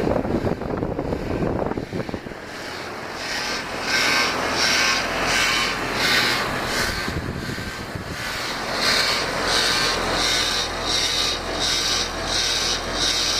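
A repeated scratchy, rasping rub, about two strokes a second, starting a few seconds in after low rumbling noise.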